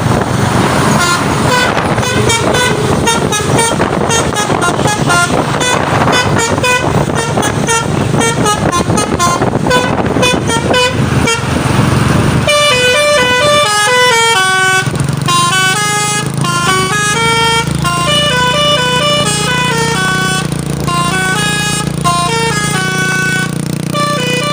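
Truck's basuri telolet horn playing a multi-note tune. In the first half it plays quick repeated notes over a loud rushing noise; about halfway through the noise drops away and the tune goes on in clearer, longer stepping notes.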